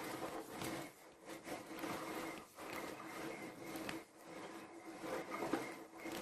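Power cord being pulled out of a canister vacuum cleaner's auto-rewind reel: irregular rubbing and scraping strokes as the cord is drawn out by hand.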